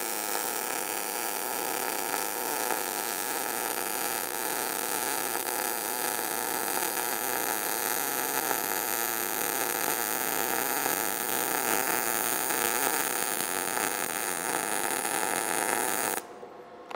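MIG welding arc on carbon steel plate, using .030 wire at about 16 volts: a steady hiss that cuts off suddenly about a second before the end as the weld stops.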